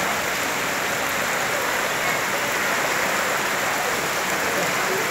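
Floodwater rushing fast and turbulent down a street: a steady, even wash of water noise.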